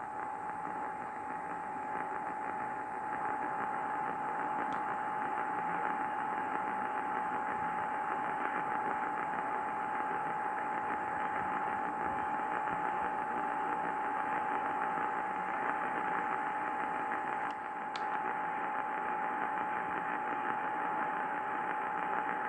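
A steady tone just under 1 kHz over radio hiss in narrow broadcast audio, in place of the EAS test message, which breaks off and does not go on: a failed relay of the Required Monthly Test. A couple of faint clicks sound partway through.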